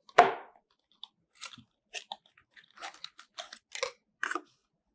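Cardboard packaging handled by hand: a short loud scrape just after the start as a small box is pulled from its tray, then light taps, clicks and rustles as the box is opened and a coiled charging cable is taken out.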